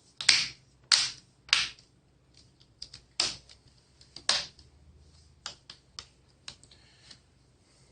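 Plastic laptop screen bezel clips snapping into place as the bezel is pressed on: five sharp snaps in the first four and a half seconds, then a run of fainter clicks.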